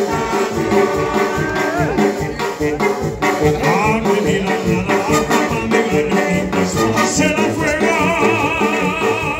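A live Latin band playing through a PA, with a brass section, electric guitar and a steady beat. A man sings over it into a microphone.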